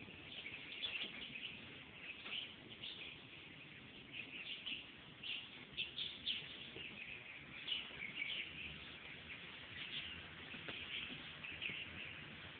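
Continual high chirping of many small birds, short calls overlapping one another.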